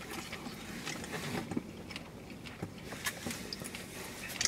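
Quiet eating sounds: chewing, with scattered light clicks of a fork against a takeout container.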